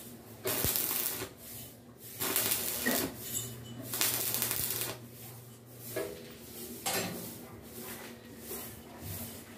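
Stick (arc) welding on a steel stove body: short bursts of electrode crackle and hiss, three of about a second each in the first five seconds, then two briefer ones a few seconds later.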